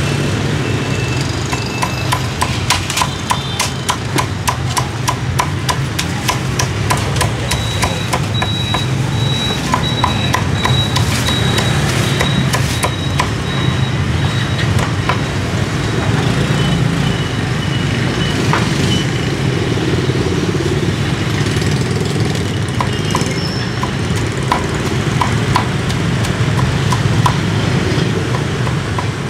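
A meat cleaver chopping roast pork on a thick round wooden chopping block: a long, rapid run of sharp knocks, thickest in the first half, over a steady low engine hum of traffic.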